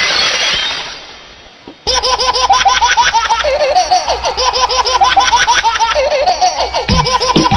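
Dance-mix soundtrack over the stage speakers: the previous track fades out during the first second or so. After a short gap, a new clip starts abruptly about two seconds in, with a rapid, even run of short high-pitched laugh-like chirps.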